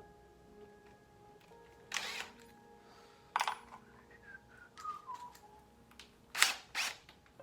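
Soft background music with held notes and a falling run of notes in the middle. Over it come short, loud noisy bursts: one about two seconds in, one about three and a half seconds in, and two close together near the end.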